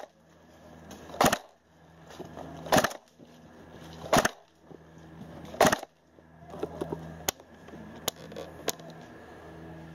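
Tokyo Marui P90 Hi-Cycle airsoft electric gun firing single shots through a chronograph fitted on its muzzle: four sharp shots, about one every second and a half. Three lighter, thinner clicks follow in the second half.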